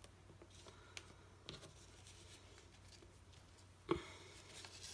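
Quiet handling sounds: a few faint clicks and taps, with a sharper click about four seconds in, over a steady low electrical hum.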